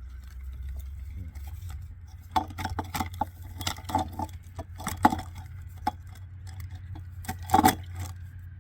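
Metal parts of a large circuit breaker clinking and clattering as they are handled: a run of irregular clicks and knocks starting about two seconds in, over a steady low hum.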